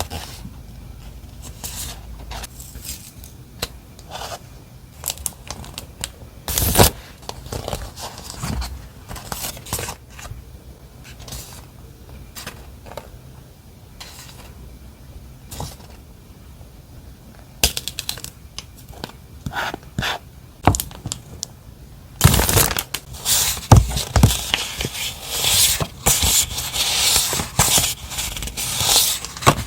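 Paper and plastic stationery packaging being handled, with scattered scrapes, crinkles and light taps. Near the end it turns into a denser, louder run of rustling and crinkling.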